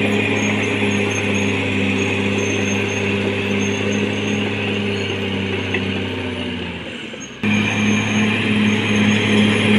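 Caterpillar D6R XL bulldozer's diesel engine running steadily with a low hum. About seven seconds in, the sound fades away, then cuts back in suddenly at full level.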